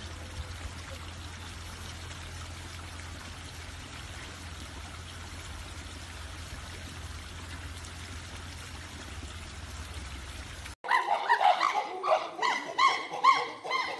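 Water trickling steadily into a garden fish pond, with a low hum under it. About eleven seconds in it cuts off suddenly and is replaced by loud, quickly repeated rising-and-falling calls, about three or four a second.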